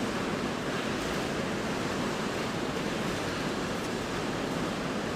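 Steady, even hiss of background noise with no other events.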